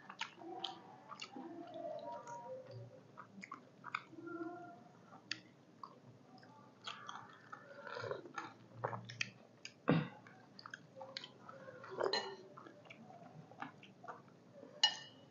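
Close-up eating sounds: two people chewing chicken from a sour chicken soup, with irregular wet mouth smacks and clicks and a spoon of broth being sipped. A few sharper clicks stand out near the middle and end.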